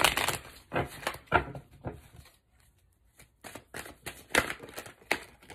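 A deck of tarot cards being shuffled by hand: a loud rush of riffling at the start, then short papery flicks and taps in two spells with a brief lull between.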